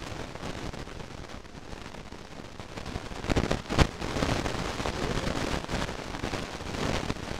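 Crackling and rustling from a soft-sided fabric pet carrier being handled as a child reaches inside it, with a few louder sharp crackles about three and a half seconds in.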